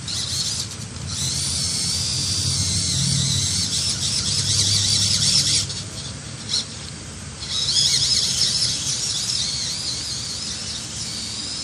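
Small electric RC car motor whining at a high pitch that wavers up and down with the throttle, over a low gear hum. It drops off for about a second and a half around the middle, then picks up again.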